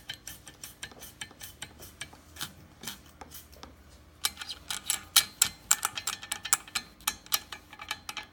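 Wastegate flap on a removed BMW N54 turbocharger being worked back and forth by hand, clicking and rattling metal on metal in its loose pivot. The clicks come quicker and louder from about four seconds in. The play in the pivot is why the wastegate does not always seat, giving intermittent low boost.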